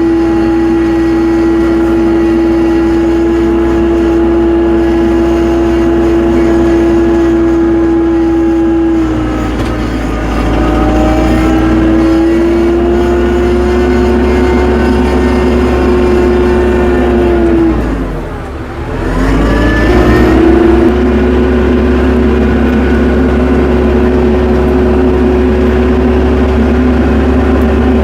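Tractor engine running steadily at high revs. About nine seconds in the engine speed sags briefly, and near eighteen seconds it drops sharply and climbs back up within about two seconds.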